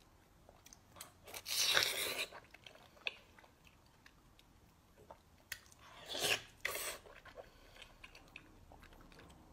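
Mouth noises of a person biting into and chewing a large piece of glazed, braised food: two loud wet bites, about a second and a half in and again around six seconds in, with soft chewing and small smacking clicks between.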